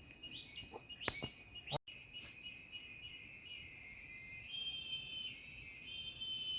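A cicada buzzing in a steady, high-pitched drone, with a pulsing insect chorus chirping underneath. The sound drops out for an instant just before two seconds in.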